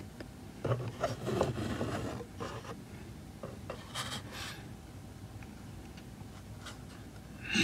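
A clear plastic sheet of 2D miniatures being handled: irregular rubbing and scraping of plastic against fingers and cardboard, busiest in the first few seconds and tapering off into a few light scrapes.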